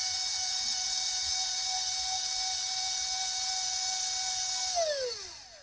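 Small electric motor of an RC model trolley's tipping jack running with a steady high whine while it tips the bed to unload soil. Near the end its pitch falls smoothly and it fades as the motor winds down.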